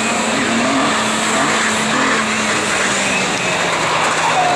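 Rallycross race cars' engines running hard at speed, a dense, steady engine noise with a held tone underneath.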